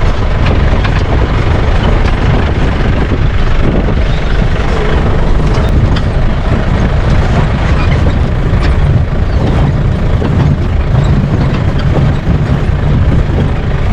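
Safari jeep driving along a rough track: steady loud engine and road rumble with scattered small knocks and rattles.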